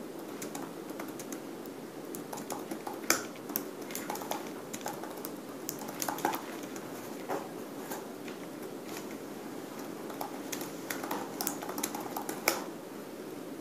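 Typing on a laptop keyboard: irregular soft key clicks, with a couple of louder keystrokes, one about three seconds in and one near the end, over a steady low room hum.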